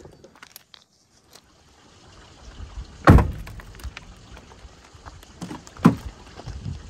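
Two sharp thunks about three seconds apart, the first the louder, from the doors of an abandoned car being handled and opened, with scattered small clicks and light wind noise on the microphone.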